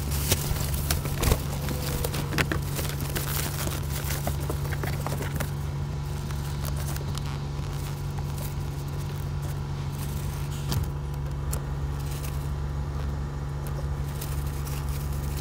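A truck's engine idles with a steady low hum inside the cab, while rustling, clicks and knocks come from window shades being fitted to the windows.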